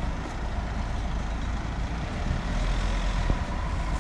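Engine of a 4x4 off-road vehicle running steadily, with a single short knock about three seconds in.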